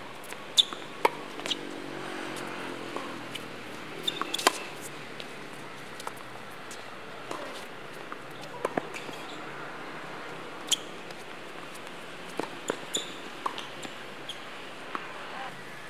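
Tennis rally on a hard court: sharp pops of rackets striking the ball and of the ball bouncing, spaced a second or more apart, the loudest just after the start, with a quicker cluster of smaller pops near the end.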